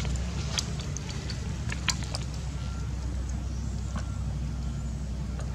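A motor hums steadily at a low pitch, with a few sharp clicks and faint short high tones over it.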